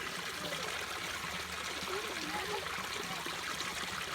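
Creek water flowing and trickling steadily over rocks in a shallow stream.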